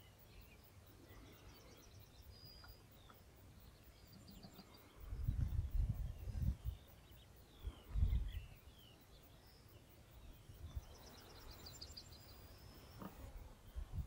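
Faint birds calling outdoors, with short high trills and chirps now and then. A few low rumbling thumps come in about five seconds in and again around eight seconds, louder than the birdsong.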